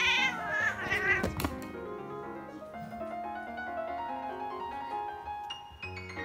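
A cat cries out twice during a wrestling bout between two cats, a wavering call that rises and falls in pitch, followed by a thump about a second and a half in. Gentle piano background music plays throughout.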